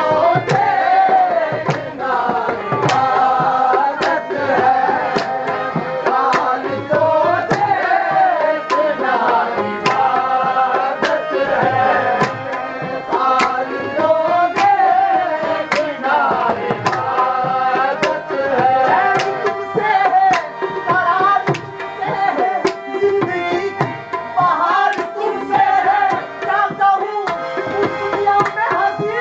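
Live qawwali: a singing voice over a harmonium's held chords, with steady hand-drum strokes keeping the beat.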